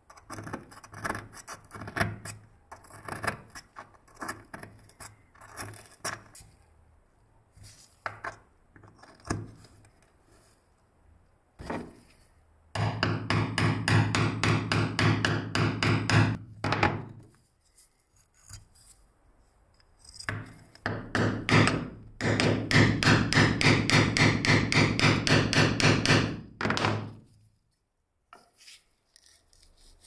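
Small metal hand tools working on an old lighter's metal parts against a wooden bench: scattered clicks, taps and scrapes, then two long runs of fast, even strokes several times a second, the second run ending near the end.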